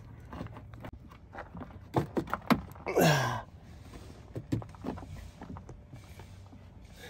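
Hands working a soapy SumoSpring rubber helper insert onto a van's front coil spring: scattered knocks and taps of rubber against the spring and wheel well. About three seconds in comes one louder sound that falls in pitch.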